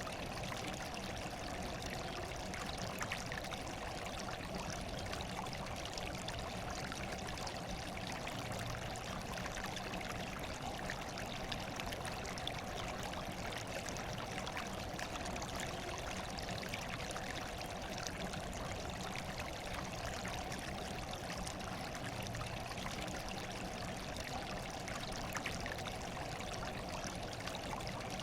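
Steady running water trickling without a break, an even hiss with faint splashy ticks.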